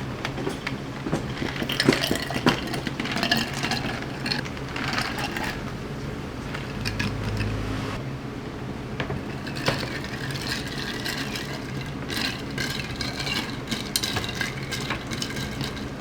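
Dishes and cutlery clinking and tapping in scattered runs of short knocks, over a steady low hum from kitchen equipment.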